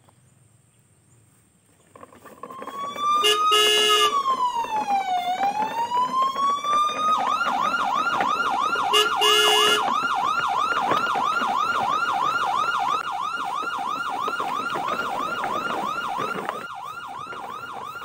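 Electronic emergency siren: after a short quiet, a slow wail falls and rises once, then switches to a fast repeating yelp that runs on, a little quieter near the end. Two short horn blasts sound over it, about a second in and again near the middle.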